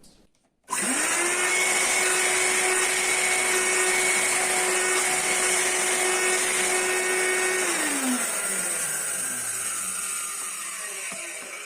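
Canister vacuum cleaner's motor switched on, running steadily with a whine, then switched off about eight seconds in and winding down. Tested directly at the motor, the suction is good: the motor itself is strong and fault-free.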